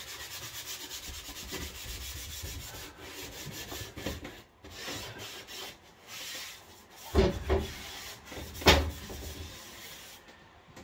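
A sponge scrubbing a wooden cabin panel in quick back-and-forth strokes, washing it down with kitchen cleaner before vinyl wrap goes on. A few louder thumps come about two-thirds of the way through.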